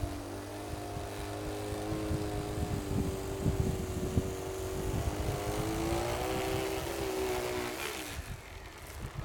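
Motor and impeller of a radio-controlled single-stage snow blower whining steadily while it throws snow, the pitch drifting a little, over a rough low rumble; the whine dies away about eight seconds in as the blower stops throwing snow.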